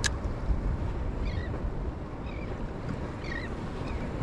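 Wind on the microphone and water around a fishing kayak on open water: a steady low rumble. A sharp click right at the start, and a few faint short high chirps about once a second.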